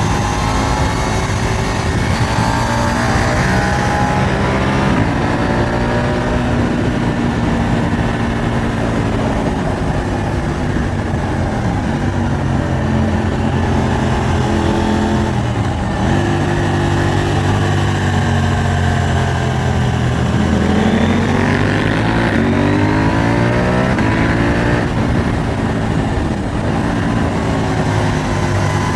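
KTM 890 Duke R's parallel-twin engine under way, the revs climbing and falling through the gears, with a long rise about three quarters of the way through.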